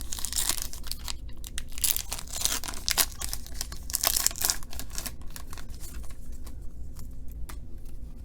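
A trading-card pack wrapper being torn open and crinkled: a run of crackling rustles over the first few seconds, thinning to fainter clicks and rustles near the end.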